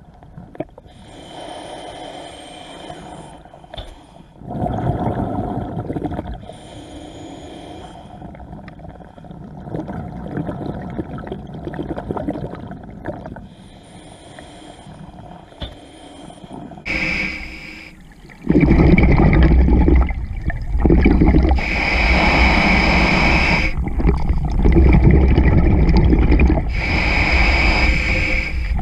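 Scuba regulator breathing underwater: hissing inhalations alternate with bursts of bubbling exhaled air. It becomes much louder and more continuous about two-thirds of the way in.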